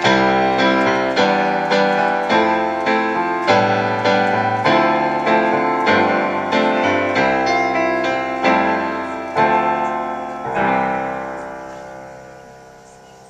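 Roland digital piano played solo, chords struck about once a second. A final chord comes about ten and a half seconds in and is held, fading away to the end.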